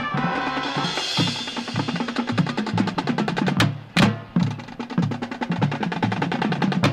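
Marching band drumline playing a percussion passage: rapid snare drum strokes and rolls over repeated bass drum notes, with a sharp accented hit about four seconds in.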